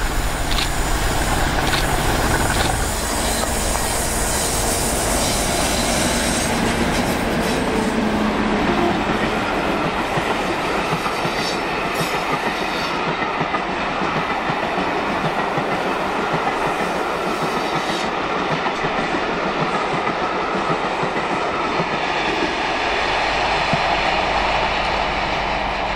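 GBRf Class 50 diesel locomotives, with their English Electric 16-cylinder engines, running past with a passenger train. The engine's low note is heard in the first few seconds, then a long rake of coaches rolls by with steady wheel-on-rail noise and clickety-clack.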